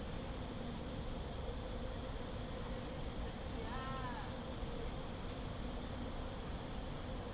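Cicadas droning steadily at a high pitch over low background rumble. A brief tone rises and falls about four seconds in.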